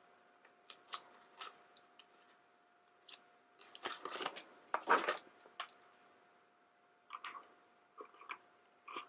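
Faint, scattered clicks and light crinkles of a small plastic toy and its packaging being handled and set down on a tabletop, busiest about four to five seconds in, over a faint steady hum.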